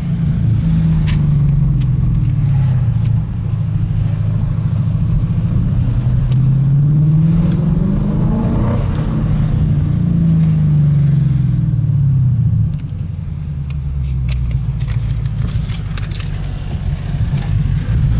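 Tuned 2017 Ford Mustang GT's 5.0-litre V8 running as the car is driven, heard from inside the cabin: a deep, even engine note whose pitch climbs and falls back a couple of times with the revs, dropping a little in loudness near the end.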